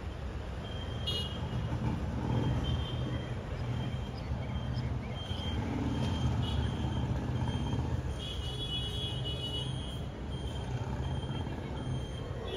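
Steady low rumble of city road traffic, with short high-pitched squeaks recurring through it.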